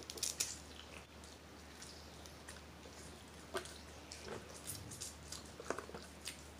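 Quiet eating at a table: scattered small clicks and crackles of seafood shells being picked apart by hand, with chewing. The clicks come in a cluster at the start, then singly about three and a half seconds in and again near the end.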